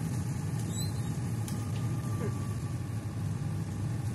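Peugeot J5 camper van driving along, its engine and road noise heard steadily from inside the cab.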